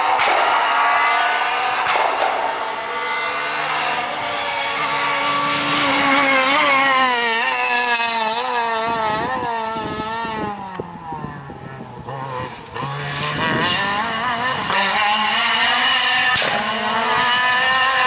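Renault Clio rally car engine at full throttle, its pitch climbing through the gears. About halfway through it drops in pitch and loudness as the car brakes and downshifts for a corner, then climbs again as it accelerates away.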